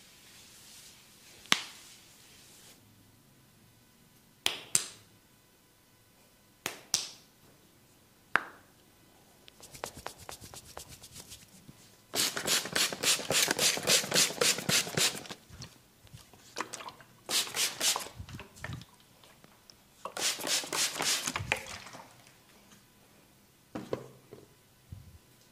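Barber's hand massage: a few single sharp snaps, then bursts of rapid rhythmic hand tapping and slapping, several strokes a second.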